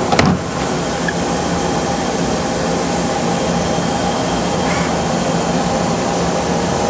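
Emco Maier ET-425 CNC turning center running its machining cycle, heard through the closed door glass: a steady whir of the spindles at speed under a hiss of coolant spray, with a faint steady whine. A short clunk just after the start.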